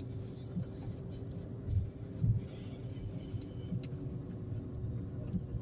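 Car driving slowly along a paved street: a steady low engine and road rumble with a faint steady hum, and two soft low thumps about two seconds in.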